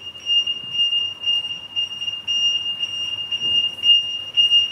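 Electronic buzzer sounding a steady, high-pitched tone, over a low background rumble.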